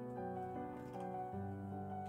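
Background music: soft piano playing slow, sustained notes and chords.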